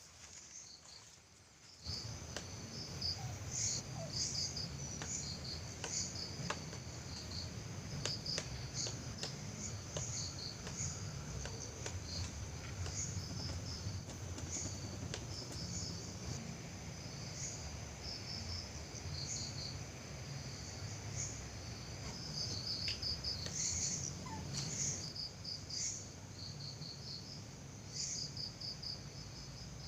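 Crickets chirping in a night-time garden: a steady high trill with groups of quick pulsed chirps repeating over it. A low rumble comes in suddenly about two seconds in and runs on beneath, with scattered faint clicks.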